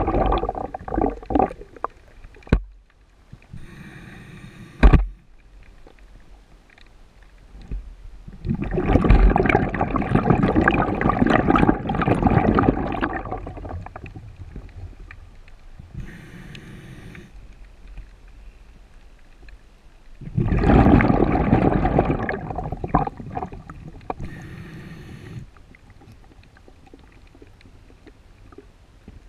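Scuba diver breathing through a regulator underwater, three slow breaths: each a short hissing inhale through the regulator, then a long rush of exhaled bubbles.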